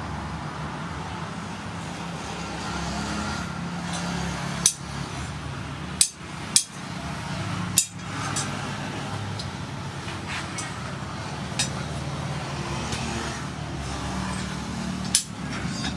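Sharp metallic clinks from a pair of forged rebar blacksmith tongs being handled at a steel anvil, their jaws snapping shut and knocking on metal, about six clinks spread irregularly over the stretch. A steady low hum runs underneath.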